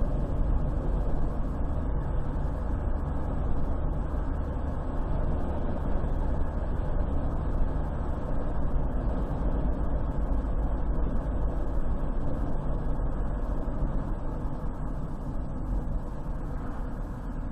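A car driving at speed: a steady rumble of tyres on the road and the engine, with no distinct events.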